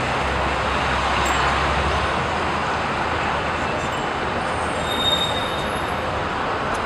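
Steady noise of a moving vehicle, with a brief high squeal about five seconds in.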